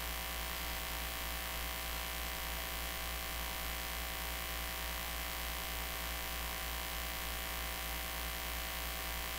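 Steady electrical mains hum with a constant hiss from an idle stage sound system, with no voice or music on it.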